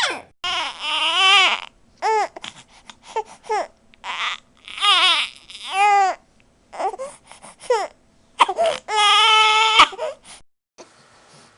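A baby crying in a string of short, wavering wails broken by quick breaths, with a longer held wail near the end before it cuts off abruptly.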